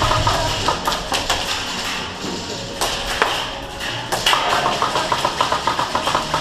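Airsoft guns firing rapid bursts of quick pops, mixed with scattered clicks and knocks; the longest rapid run comes in the second half.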